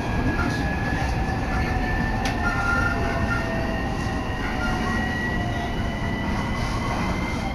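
Running noise inside a moving commuter train on the Takasaki Line: a steady rumble of wheels on rail, with a thin whine that slowly rises in pitch.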